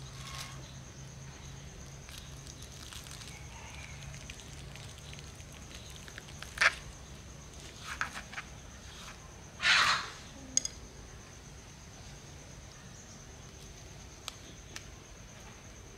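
Handling sounds as water spinach cuttings are pushed through the holes of a plastic basket into soil: faint rustling with a few short sharp scrapes in the middle, the longest about ten seconds in. A steady faint high whine runs underneath.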